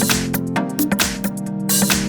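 Nokia T20 tablet playing an electronic alarm tone: a tune of sustained notes over a steady beat.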